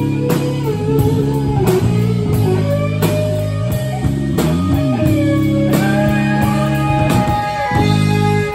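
Live rock band playing an instrumental passage: electric guitar, with notes bent up and down, over electric bass and a steady drum beat.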